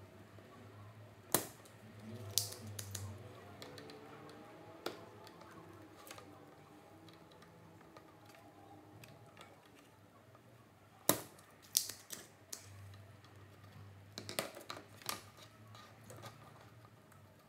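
Small hand tools clicking and clacking against a monitor's power supply circuit board while its capacitors are being removed: irregular sharp clicks, a couple of loud ones in the first few seconds and another cluster past the middle, over a faint low hum.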